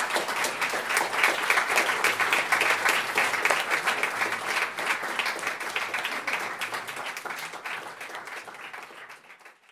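Audience applauding, many hands clapping together. The clapping thins and fades out over the last three seconds or so.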